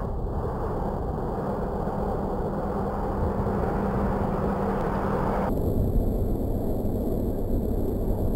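Steady low rumble of wind buffeting the microphone, mixed with traffic on the highway below; about five and a half seconds in, the higher hiss drops away.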